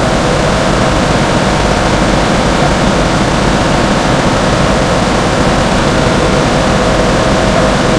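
Seal air fan, a centrifugal blower on a 3000 RPM electric motor, running with a loud, steady rush of air and motor noise. The fan is out of balance, giving high vibration at the motor's newly replaced bearings.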